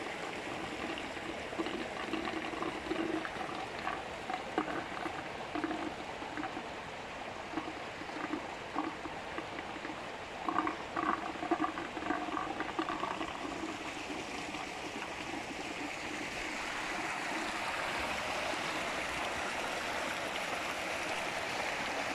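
Water pouring from inlet pipes into concrete trout-farm ponds, a steady splashing rush that grows louder in the second half. Brief faint pitched sounds come and go in the first half, strongest about ten to thirteen seconds in.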